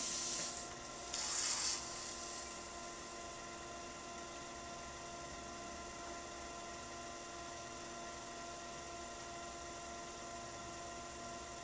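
Electric pottery wheel motor running with a steady hum of several constant tones. Two brief hisses come in the first two seconds.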